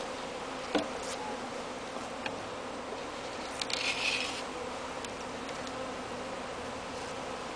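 Steady hum of a crowd of honey bees flying around a newly installed hive. There is a single click about a second in and a brief rustle about four seconds in.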